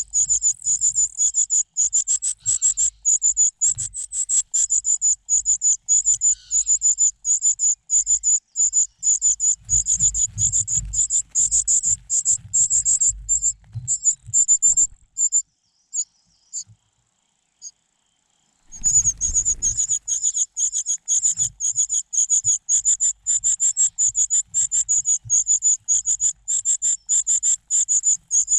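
Nestling birds' begging calls: a fast, steady train of thin, high-pitched chirps, several a second. They stop for a few seconds past the middle, then start again.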